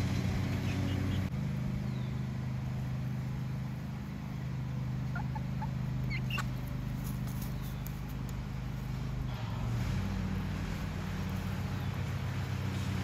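A steady low motor-like hum, with a few short, high, rising calls from hens about five to six and a half seconds in.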